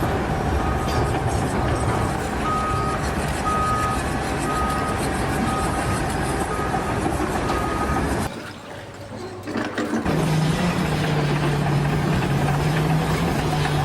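Heavy machine engine running with a reversing alarm beeping about once a second. After a short quieter break, a steady low engine drone takes over.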